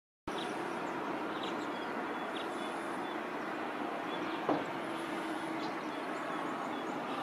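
Steady outdoor background noise, with a few faint, short high chirps and one brief click about four and a half seconds in.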